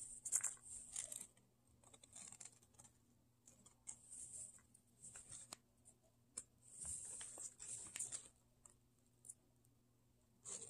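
Faint, scratchy rustling and a few light clicks of fingers handling and pressing piped modelling-clay flowers into place on a clay-covered cake, in short bursts with pauses between.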